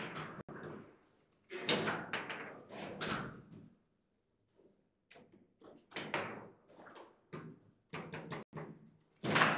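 Table football in play: the players' figures striking the ball and the ball knocking against the table's walls and figures, with the rods clacking. The knocks come in irregular runs, with a short lull near the middle and the loudest hit near the end.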